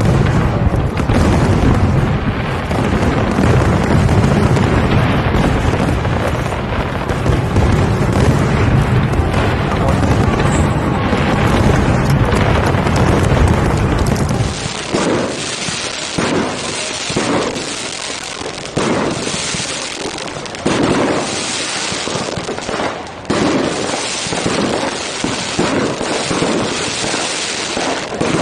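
Fireworks display: a dense, unbroken barrage of bursts with deep booms, then, after a cut about halfway, a run of separate firework bangs at irregular spacing.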